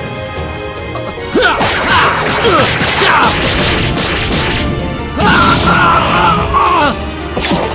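Cartoon fight sound effects: rapid punches, smashes and whooshes over dramatic background music. The hits come in two loud flurries, the first about a second in and the second about five seconds in, with a last single hit near the end.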